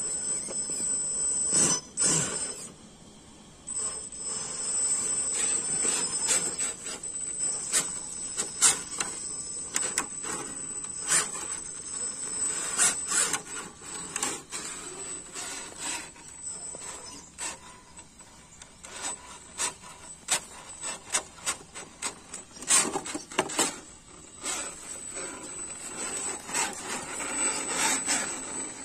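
RC crawler trucks working their way over rocks: the geared electric drivetrain grinding, with tyres and chassis scraping, clicking and knocking against stone in an irregular stream.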